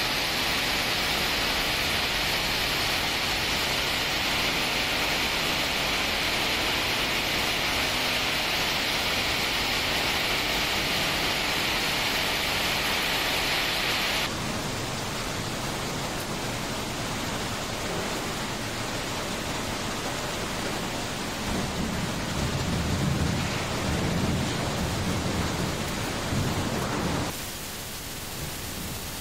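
Steady hiss and rattle of a scrap aluminium can processing line, with conveyors running and crushed cans clattering. The sound changes abruptly twice, and a heavier low rumble comes in during the second half.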